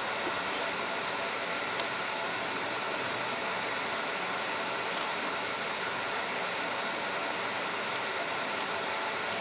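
Handheld fiber laser marking machine running: a steady even hiss with a faint high whine.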